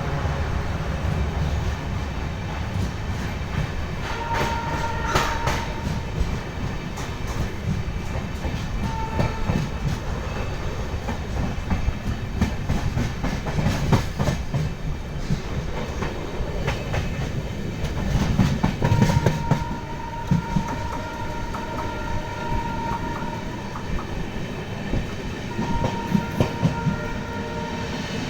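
A train rolling along the tracks: a continuous rumble with the wheels clicking over the rail joints. A few high steady tones sound over it, a short one about four seconds in and longer ones from about nineteen seconds in and near the end.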